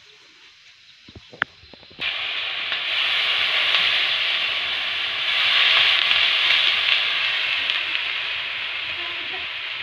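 Chicken frying in a pan over an open wood fire: a steady sizzling hiss that starts suddenly about two seconds in. Before it there are a few short, sharp clicks.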